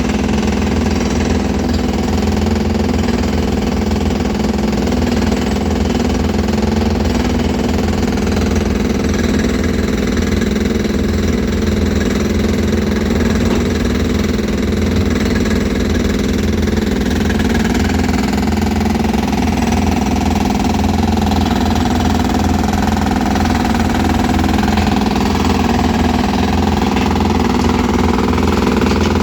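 A machine's engine running steadily at an even pace, with a slight change in its tone about halfway through.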